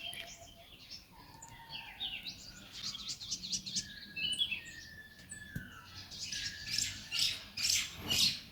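Small birds chirping and calling in many short, quick notes that slide up and down, growing busier near the end.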